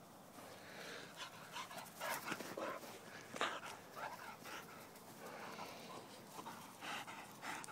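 A dog panting in short, irregular breaths.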